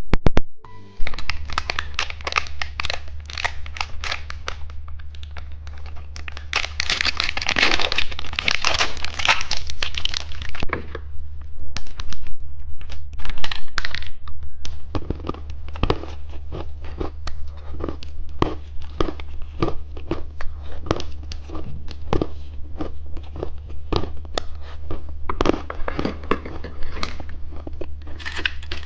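Plastic candy packaging crinkled and torn open, with many sharp clicks and crackles and a louder stretch of crinkling partway through, over a steady low hum.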